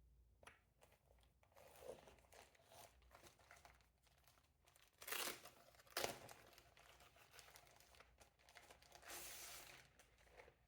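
Quiet handling of a keyboard's retail packaging as it is opened: crinkling, tearing and rustling of wrapping. There are louder swishes about five and nine seconds in and a sharp click around six seconds.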